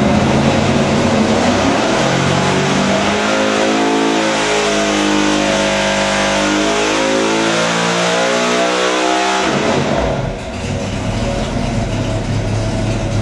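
Racing V8 engine running under load on an engine dynamometer, revving up steadily through a pull, then dropping back abruptly about ten seconds in to a lower, rough rumble.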